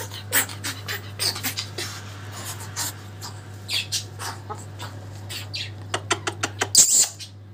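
Umbrella cockatoo in its puffed-up, crest-raised 'monster' display, giving a run of short, harsh breathy hisses and huffs, several a second, loudest near the end.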